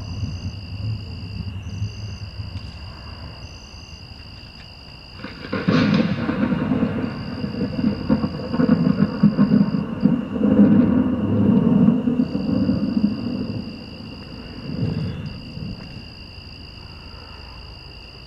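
Thunder sound effect played through a guitar amplifier. It starts with low rumbling, then a sudden loud crash about five seconds in, heavy rolling rumbles for about seven seconds, and a last rumble that fades out. This is the track that drives the homemade lightning controller's flashing lights. Insects trill steadily at night throughout.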